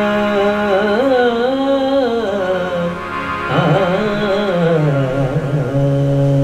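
A man singing long, ornamented held notes, his pitch wavering and sliding in South Asian classical style, accompanied by a harmonium holding steady notes underneath. About five seconds in, the line drops to a lower held note.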